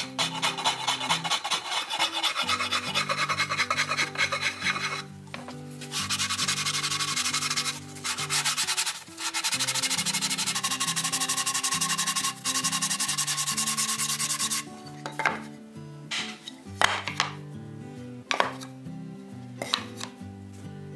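A hand file rasping across a wooden seat riser clamped in a vise in quick back-and-forth strokes, then longer, smoother strokes of sandpaper wrapped around a file from about six seconds in. Near the end the strokes stop and a few knocks follow. Background music with steady bass notes plays underneath.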